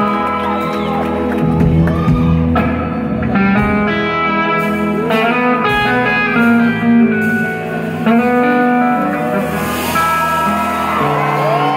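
A rock band playing live, led by an electric guitar with no vocals. The guitar plays held and bent notes over a steady bass line.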